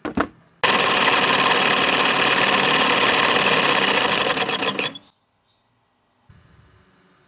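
Homemade PVC scroll saw clicked on, its small DC motor driving the blade up and down in a loud, steady run with a fast even rhythm. The run lasts about four seconds and cuts off suddenly when it is switched off.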